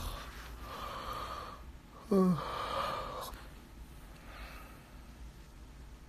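A man breathing close to a phone's microphone, with a sigh about two seconds in: a short voiced sound falling in pitch that trails off into a breathy exhale.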